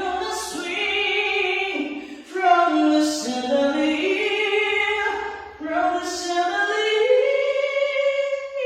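A woman singing without accompaniment in three long phrases of held notes, each opening with a hissing consonant; the last phrase rises and holds a higher note.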